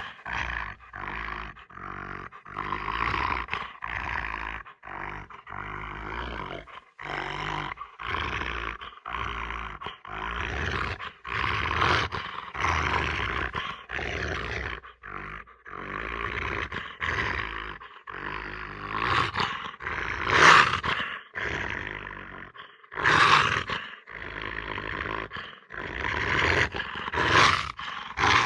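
A long run of harsh animal-call sound effects, one after another at about one a second with short breaks between, each lasting under a second; the loudest come in the second half.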